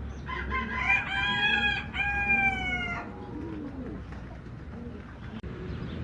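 A rooster crowing once, a long call in two parts lasting nearly three seconds, over a low background hum.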